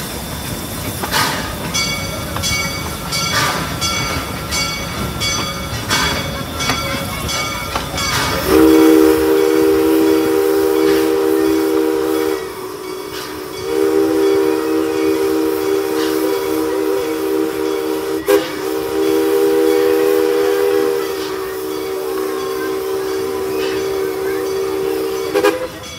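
Steam locomotive running, its bell ringing with regular strikes under a hiss of steam; about eight seconds in, its multi-tone steam chime whistle blows a long blast of about four seconds, pauses briefly, then blows again for about twelve seconds.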